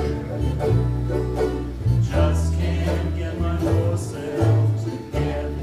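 Ukulele group strumming and singing a torch song together, with low bass notes changing underneath.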